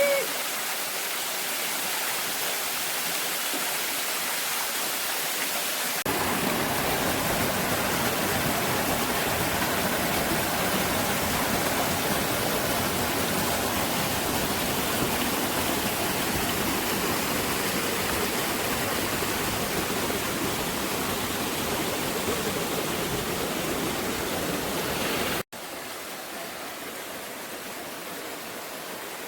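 Waterfall rushing, a steady roar of falling water. About six seconds in it turns louder and fuller, and near the end it drops suddenly to a quieter, thinner rush.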